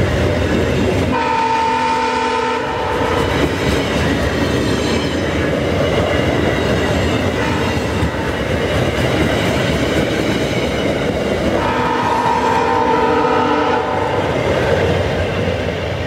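VIA Rail LRC passenger coaches rolling past close by, the steady noise of the wheels on the rails with a clicking over the rail joints. A train horn sounds twice, a short blast about a second in and a longer one about twelve seconds in.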